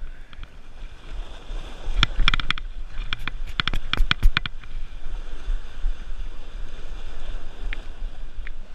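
Sea surf washing over shoreline rocks, with wind buffeting the microphone. About two seconds in, a quick run of sharp clicks lasts for about two and a half seconds.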